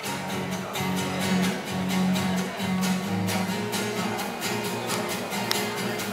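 A live band playing an instrumental passage: strummed acoustic guitars over an electric bass line, with a steady beat.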